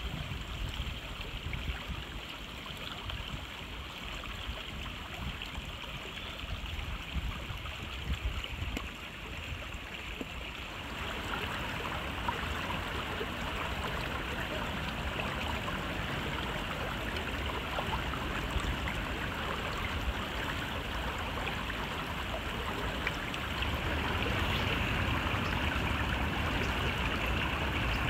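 Creek water running steadily as a constant rushing hiss, growing louder about eleven seconds in.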